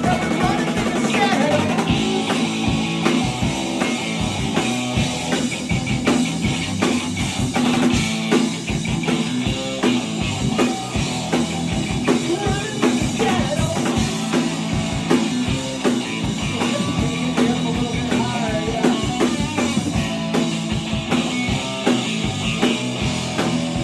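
A rock band playing: a drum kit keeping a steady beat under guitar.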